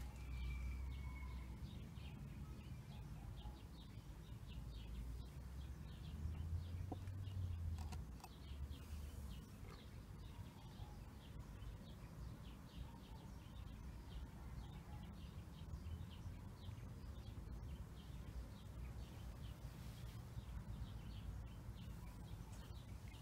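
Faint, scattered bird chirps over a low, steady background rumble.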